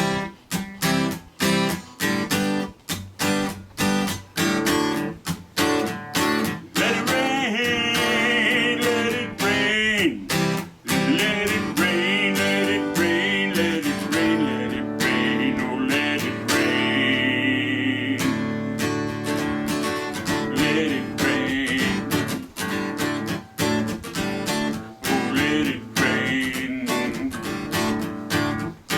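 Acoustic guitar strummed in a steady rhythm, an instrumental break in a song. A high, wavering lead melody plays over it through the middle and again near the end.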